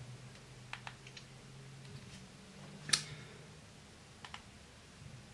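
Keypad buttons of an Alcatel 10.66 feature phone being pressed: a few light clicks about a second in, one sharper click about three seconds in, and a couple more past four seconds.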